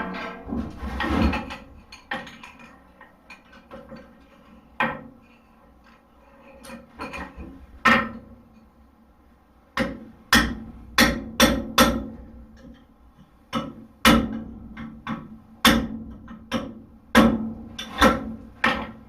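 Hand hammer striking a punch to drive a hole through hot steel on an anvil, each blow ringing. A few scattered blows, a lull of a few seconds, then a steady run of strikes about two a second through the second half.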